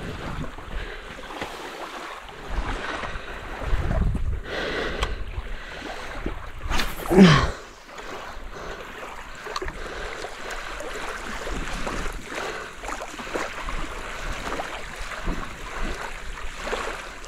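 Wind on the microphone and small waves lapping at a sandy shore. About seven seconds in, a brief, loud sound sweeps sharply down in pitch.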